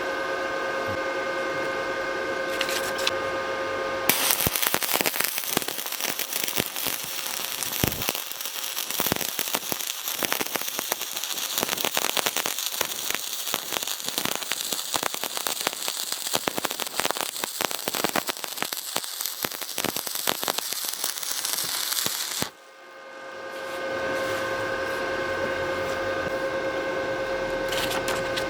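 Electric stick-welding arc crackling and spitting for about eighteen seconds, then stopping abruptly. Before and after it there is a steady hum.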